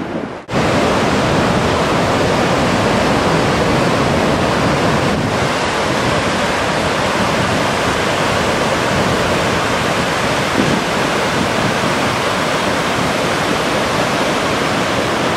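Grand Falls, a wide muddy waterfall on the Little Colorado River in full flow: a steady rush of falling water that starts abruptly about half a second in.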